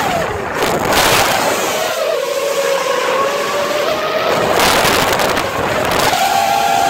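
Small multirotor drone's motors and propellers whining in flight, the pitch dropping about two seconds in and climbing again near the end as the throttle changes. Heavy wind noise rushes over the phone's microphone taped to the drone and swells twice.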